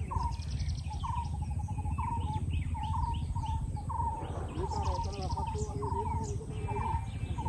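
Wild birds calling: one repeats a short call about once a second, with quicker high chirps from others among it, over a steady low rumble.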